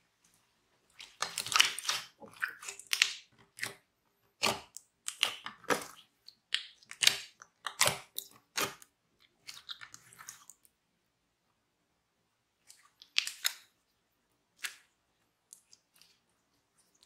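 Clear slime filled with beads and glitter being stretched and pressed by hand, giving irregular sticky crackles and squishes. They come thick for the first ten seconds or so, then only a few scattered ones near the end.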